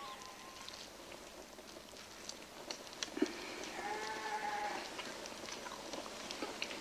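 A farm animal gives one long, faint bleat about three and a half seconds in, over scattered small clicks.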